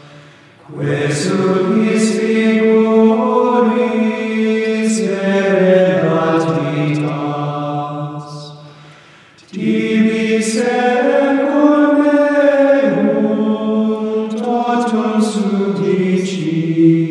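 Benedictine monks' choir chanting plainchant in unison, male voices on a single melodic line. Two long sung phrases, with a short break for breath about halfway through.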